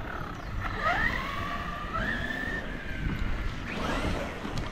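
Wind buffeting the microphone and tyre rumble from a moving e-bike on asphalt. Through the first half a faint wavering whine rises and falls, and it returns briefly near the end.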